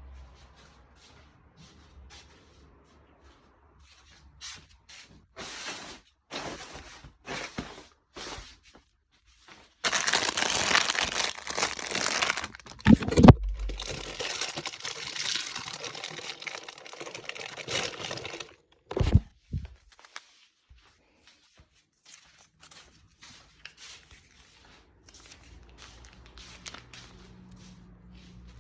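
Rustling and crinkling, like paper or plastic being handled: scattered short rustles, then several seconds of loud continuous crinkling, with two dull thumps in the middle and later, dying down to faint occasional clicks.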